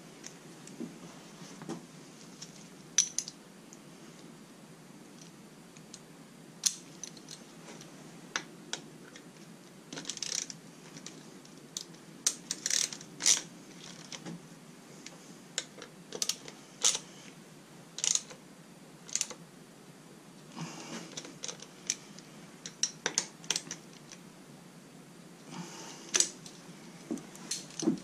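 Irregular small metal clicks and clinks, with short stretches of rustling, from hand tools and brake parts being handled at a dirt bike's rear brake caliper during a brake pad change.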